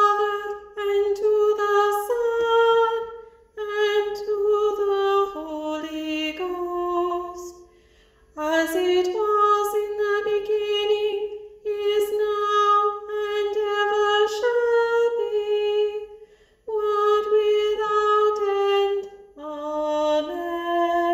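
Small mixed-voice choir singing plainchant in unison, unaccompanied: one melodic line of held notes in several phrases with short breaks between them.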